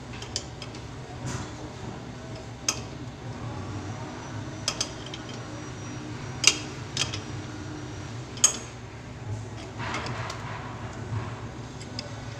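Scattered sharp metal clinks and taps, about ten of them, as a hand tool works a fitting on a sensor faucet's solenoid valve. The two loudest come about six and a half and eight and a half seconds in, with a rustle of handling around ten seconds, over a steady low hum.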